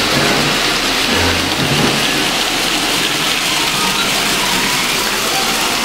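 Three-rail toy trains running on tinplate track: a steady whir of wheels and motors.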